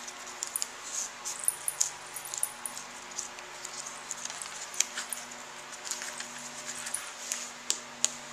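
Crisp crackling and scattered small sharp clicks of a fresh, rolled canna leaf being unrolled and pulled apart by hand, over a faint low hum.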